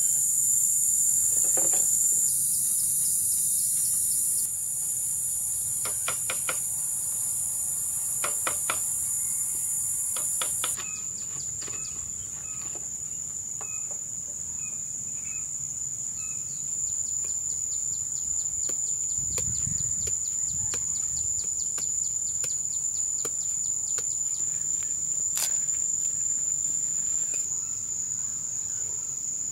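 Insects keep up a steady, high-pitched trill. A few sharp knocks of bamboo poles being handled come through in the first half, and there is a soft low thump partway through.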